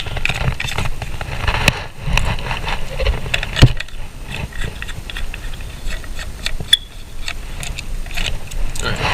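Adjustable cabinet feet being handled and screwed together by hand: a run of small clicks and rattles, with sharper knocks about three and a half seconds in and again near seven seconds.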